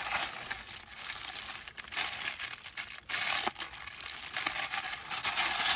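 Clear plastic bag crinkling in uneven bursts as it is handled and pulled open.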